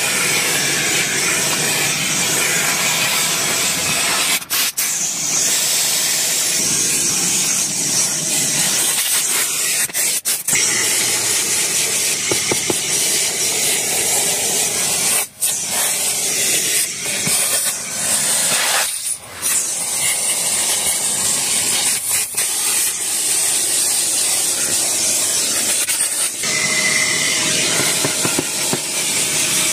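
Vacuum cleaner running with a steady suction hiss as its nozzle is worked over a rubber car floor mat, picking up grit and seed shells. The sound dips briefly several times.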